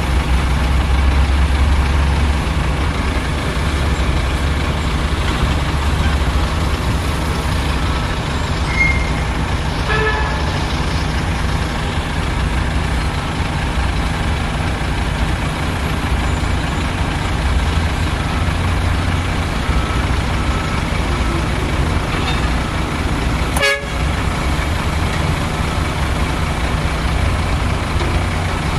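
Heavy diesel engines of mining trucks and excavators running steadily with a deep rumble, with two short high beeps about nine and ten seconds in.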